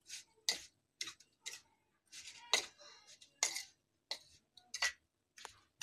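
Steel spoon stirring and scraping coarse-ground pickle spice mix around a stainless steel plate: a run of short, sharp scrapes, roughly two a second.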